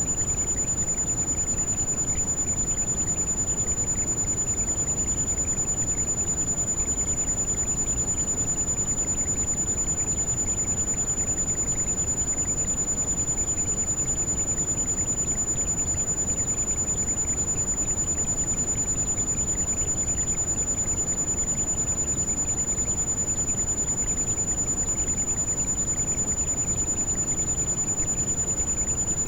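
Heavy rain falling as a steady, even wash of noise. A continuous high-pitched pure tone, a tinnitus-like ring, is mixed over it and does not change.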